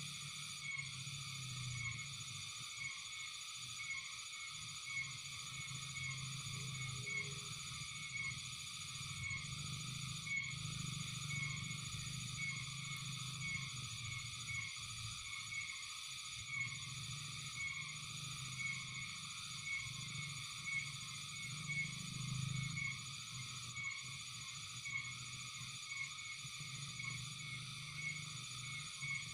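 Steady chorus of frogs and insects: a dense high ringing with a short call repeating about once a second, over a low hum.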